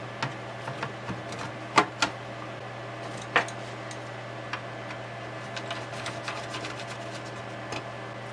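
Scattered sharp clicks and knocks as the engine board of a Kurzweil K2000R synthesizer is pressed into place in its metal chassis, followed by lighter ticks of screwdriver work. Throughout there is a steady low hum. The loudest click comes a little under two seconds in.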